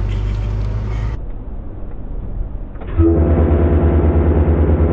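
A vehicle engine running with a steady low hum. About three seconds in it comes in loud with an even, rapid low pulsing.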